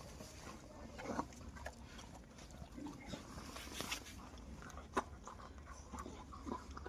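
A dog making faint, short, scattered noises, with one sharp click about five seconds in.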